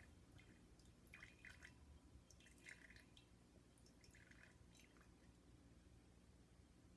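Faint drips and trickles of water falling from a siphon hose into a glass beaker, in three short clusters about a second and a half apart, as the siphon keeps the water running from the bottle.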